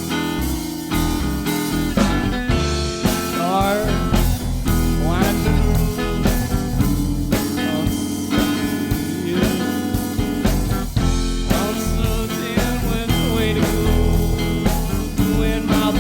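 Blues-rock band playing an instrumental passage on drum kit, bass and guitar, with notes gliding up and down a few seconds in.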